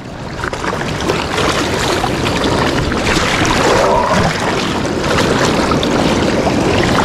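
Fast-flowing river water churning and splashing right at the microphone as a hand reaches into the current to grab a hooked shad.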